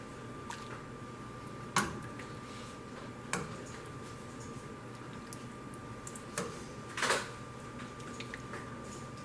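Plastic ladle serving pea and meat stew from a steel pot into a terracotta bowl: four sharp knocks of the ladle against the pot and bowl, the last a longer clatter about seven seconds in, with soft liquid sounds of stew being poured.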